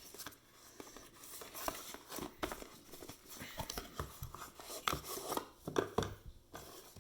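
Product packaging being opened by hand: irregular crinkling, tearing and small clicks and knocks.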